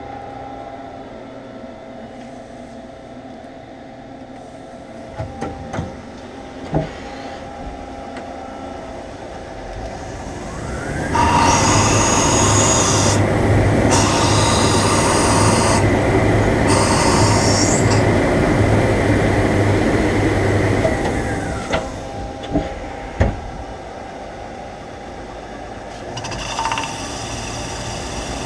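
Methods Slant 50 CNC turning center running. A few sharp clicks come over the steady hum, then about ten seconds in the spindle spins up with a rising whine. It runs loud for about ten seconds with a steady high tone and hiss, then winds down with a falling whine, followed by more clicks and the machine's idle hum.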